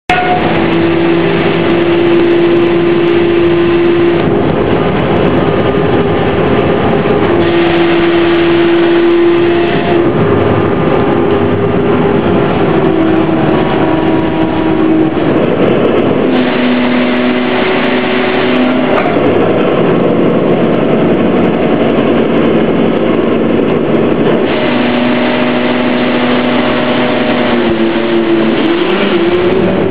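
A passenger ferry's engine running steadily under a continuous rushing noise, heard from on board. The engine hum shifts in pitch every few seconds.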